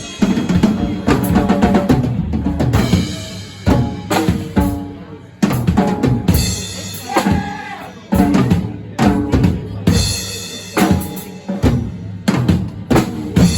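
Music with a drum kit: bass drum and snare strikes under pitched instruments.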